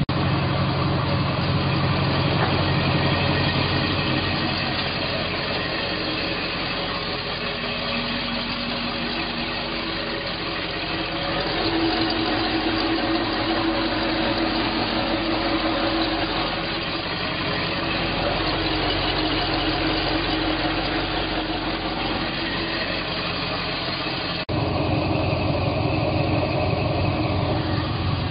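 Indmar Monsoon 340 V8 inboard engine of a 2006 Malibu Wakesetter VLX V-drive boat idling steadily. About 24 seconds in, it suddenly gets louder.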